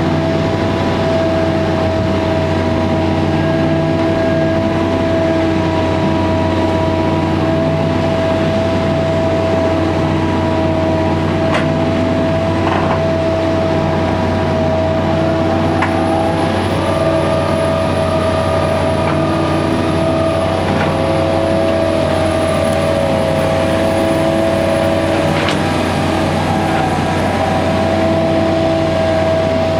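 Fundex F3500 piling rig running steadily while drilling a CFA pile: a constant low engine drone under a steady high hydraulic whine, which wavers in pitch for a few seconds past the middle. A few sharp clicks come through.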